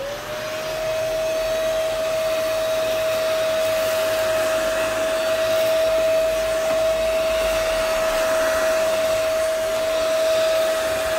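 Deerma DX900 corded handheld vacuum cleaner switched on, its motor quickly winding up to a steady high whine over a rush of air as it sucks leaf bits and dust off a tabletop.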